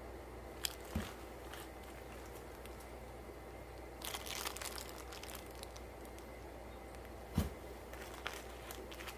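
Plastic fish-shipping bags crinkling as they are handled, with a few sharp clicks and two soft thumps, the louder thump about seven seconds in.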